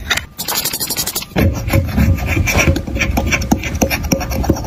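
Metal spatula scraping pressed makeup powder out of a compact's metal pan, a run of rough scratching and rubbing strokes with small clicks, growing denser after about a second.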